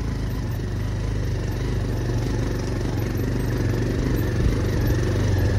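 Motorcycle running at low speed over a rough stone track, heard from the pillion seat: a steady low engine drone with road noise, growing a little louder near the end.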